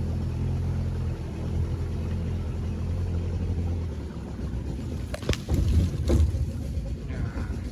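A small boat's motor running slowly at low revs, a steady low hum that eases off about four seconds in. A few sharp knocks follow near the end.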